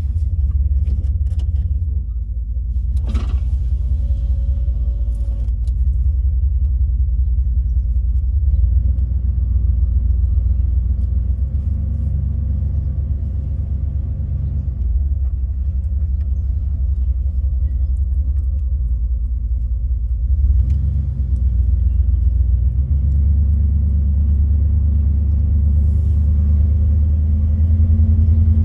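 Dodge vehicle driving with its freshly rebuilt 46RE automatic transmission: a steady low engine and drivetrain rumble whose pitch changes a few times as it picks up speed and shifts.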